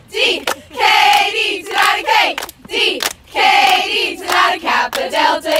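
A group of young women chanting a sorority song in unison, unaccompanied, with hand claps between the sung phrases.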